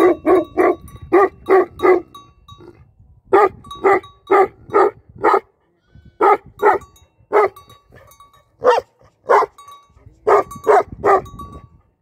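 Large black-and-tan livestock guardian dog barking repeatedly, about twenty barks in runs of three to six, roughly three a second, broken by short pauses.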